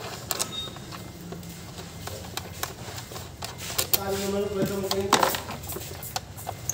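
Scattered metallic clicks and taps of a socket wrench working bolts on top of a car engine. A drawn-out call sounds in the background about four seconds in and ends with a sharp knock.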